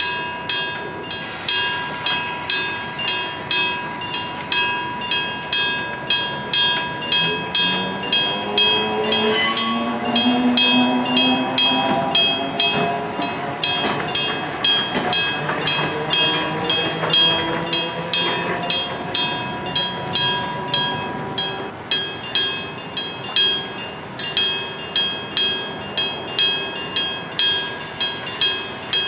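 An electric-bell level-crossing bell striking steadily at about two strokes a second. From about 7 to 20 s a train passes, its motor whine rising in pitch, with a short whistle about nine and a half seconds in.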